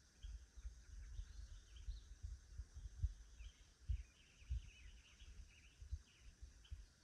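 Small birds chirping in quick, short calls, busiest about halfway through, over a faint low rumble.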